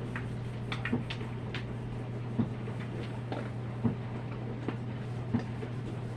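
Washable-marker lines being erased from a quilt pattern: a series of light, irregular ticks and scuffs from the rubbing and handling, over a steady low hum.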